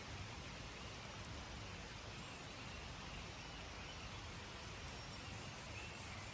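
Steady outdoor ambient hiss with a few faint, brief high chirps now and then.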